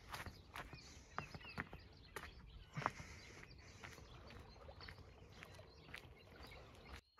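Faint outdoor ambience by calm water: irregular soft clicks and ticks, with a few short bird chirps.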